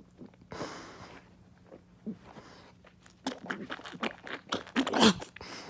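Rustling and handling noise of a phone moving against bedding and a pillow, a run of crackles and scuffs, with a breathy exhale early on and a short vocal sound about five seconds in.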